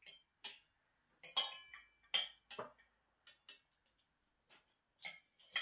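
Metal fork clinking against a ceramic dinner plate as a child eats: a dozen or so short, irregular clinks, some with a brief ring.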